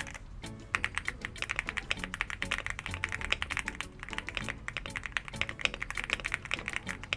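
Fast typing on a stock Leobog Hi8 mechanical keyboard, a dense run of rapid keystroke clicks that picks up after a brief pause near the start.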